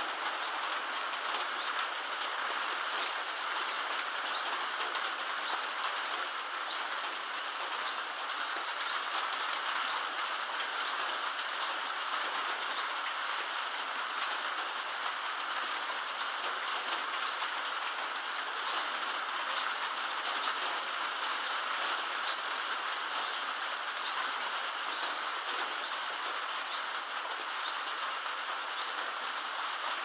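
Steady rain falling, an even hiss that holds at one level throughout. A bird gives a short, faint high call twice, about nine seconds in and again about three-quarters of the way through.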